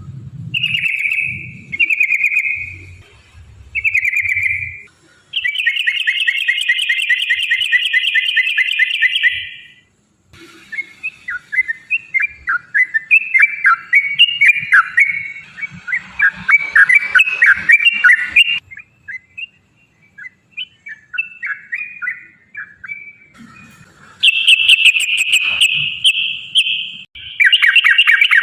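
Yellow-vented bulbul (trucukan) singing: a few short bubbling phrases, then a long, fast rolling trill, a run of rapid chattering notes, and more fast trills near the end.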